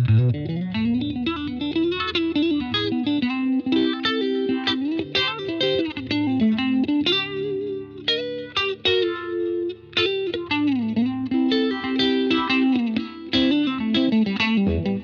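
Electric guitar played through an EarthQuaker Devices The Depths analog optical vibe pedal: single-note lead lines with several string bends, coloured by the pedal's vibe effect with a little crunch.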